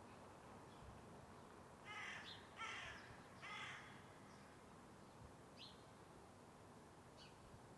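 A bird gives three harsh calls in quick succession about two seconds in. A smaller bird chirps faintly twice near the end, over quiet outdoor ambience.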